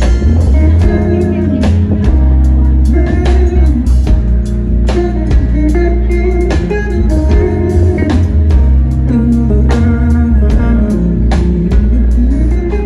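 Live band playing an instrumental passage with no singing: acoustic guitar over a drum kit, bass and keyboard, amplified through the stage speakers, with steady drum hits throughout.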